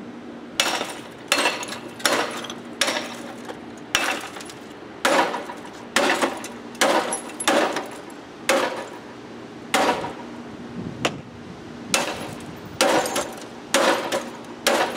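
About twenty hard blows of a bat against a CRT monitor, spaced roughly half a second to a second apart, each a sharp crack with a short ringing tail.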